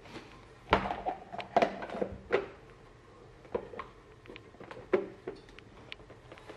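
Light plastic knocks and clatters, about ten in all and loudest in the first two and a half seconds, as the clear plastic dome lid of an egg cooker is handled and set down over the eggs in its base.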